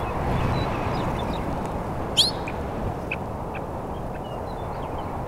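Steady wind noise over open country, with one sharp, high bird call about two seconds in and a few faint short bird chirps after it.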